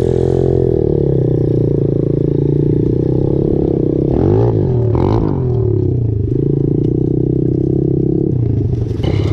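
Pit bike engine running under way over rough grass, its pitch rising and falling a few times around the middle as the throttle is opened and closed.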